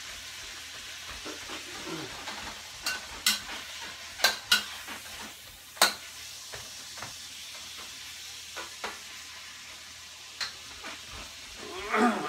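Diced cured pork sizzling steadily in a wok while being stir-fried, with sharp clacks of the spatula striking the wok, several between about three and six seconds in. A brief vocal sound near the end.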